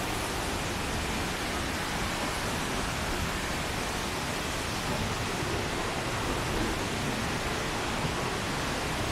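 Waterfall's water rushing steadily: an even, unbroken hiss with no separate events.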